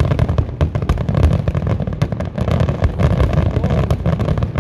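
Aerial fireworks display going off in rapid succession: many sharp pops and bangs close together over a continuous low rumble of shell bursts.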